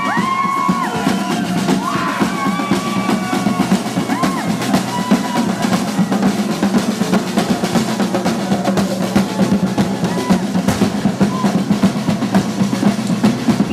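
Marching drums, snare and bass, beating a fast continuous rhythm with rolls as a procession band passes, with crowd voices over the first few seconds.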